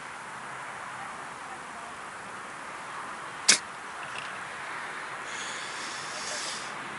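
A single sharp, loud crack about halfway through, over steady outdoor background noise, followed near the end by a faint high rustle.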